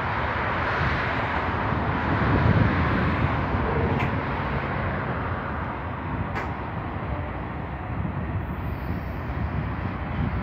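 Freight cars rolling past: a steady rumble of steel wheels on rail with a hiss over it, and two sharp clicks about four and six seconds in.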